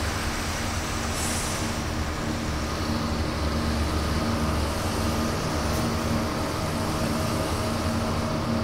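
Road traffic rumbling through a street underpass as buses and cars pass, with a short hiss about a second in. Steady humming tones sit over the rumble, and a higher tone joins about halfway through.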